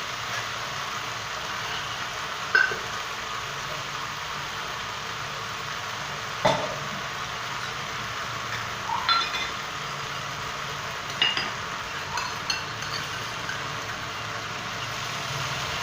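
Vegetables being stirred in a pan with sauces: a metal utensil clinks and scrapes against the pan about half a dozen times over a steady hiss.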